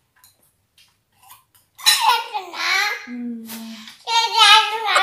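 A toddler babbling in a high, sing-song voice from about two seconds in, broken by a short low hum in the middle. Before that come a few faint clinks of tableware.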